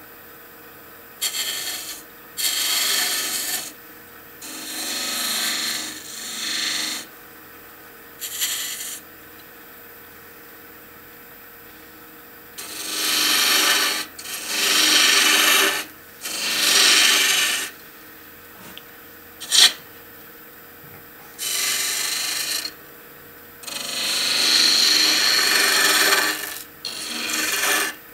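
Hand-held turning tool cutting a spinning pale wood spindle on a Record Power wood lathe: about a dozen short scraping cuts, each one to two seconds long, with the lathe's steady hum between them. One sharp tap comes a little past the middle.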